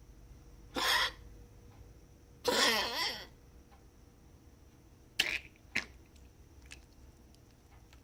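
A pet coughing in a string of separate coughs. There is one a second in, a longer one about two and a half seconds in with a wavering, rasping tone, and two short sharp ones a little after five seconds.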